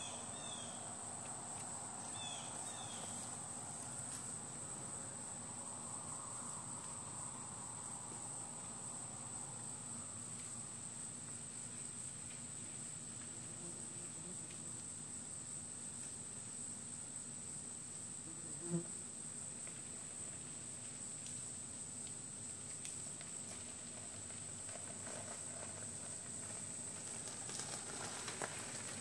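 Yellow jacket wasps buzzing, a low hum of wings that is strongest over the first several seconds and fades, over a steady high-pitched tone. There is a single short knock about two-thirds of the way through.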